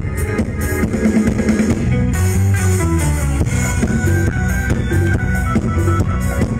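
Live band music played loud through an outdoor concert sound system, with a steady drum beat under sustained instrument notes, picked up by a phone microphone in the audience.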